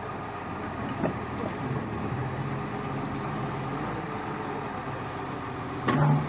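Link-Belt excavator's diesel engine running steadily, with a short click about a second in and a brief louder burst near the end.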